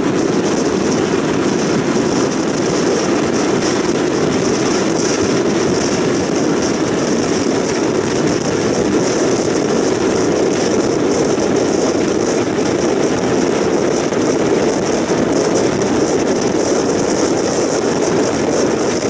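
Steady rush of wind and tyre roar from a car driving at motorway speed, heard from inside the moving car.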